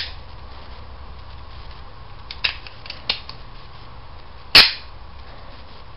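Switchblade knife mechanism clicking: a few light metallic clicks, then one loud sharp snap about four and a half seconds in as the spring-loaded blade springs out and locks.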